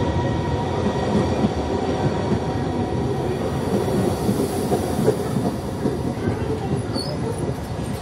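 Korail passenger train cars rolling past along a station platform: a steady rumble of wheels on rails with uneven clatter. A faint high whine from the wheels fades out in the first second or two.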